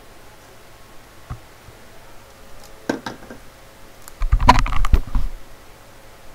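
Handling noise from an iPod and its cable being fiddled with right at a headset microphone. A few scattered clicks come first, then about four seconds in a second-long burst of knocks and rubbing, the loudest part.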